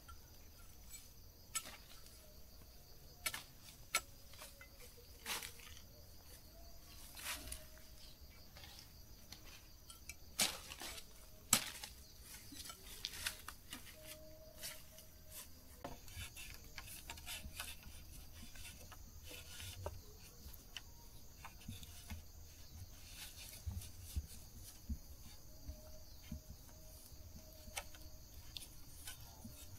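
Irregular light knocks and clicks, the loudest two about ten and eleven seconds in, over a steady high chirring of insects.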